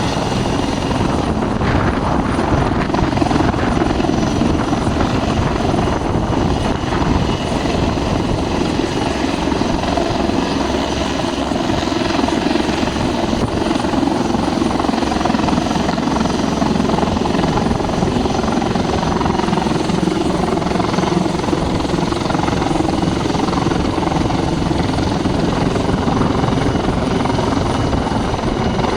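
Helicopter flying close by, its rotor beating steadily, loud and unbroken.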